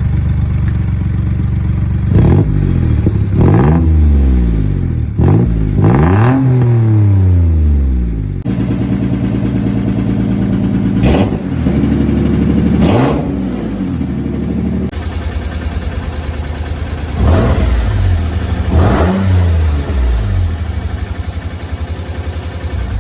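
1991 Nissan 300ZX's V6 engine idling with sharp throttle blips, heard in three takes one after another: about four revs through the old, broken TopSpeed Pro-1 exhaust, then two revs with the exhaust off, then two more through the new TopSpeed Pro-1 exhaust. The sound changes abruptly at each cut, about a third and two-thirds of the way through.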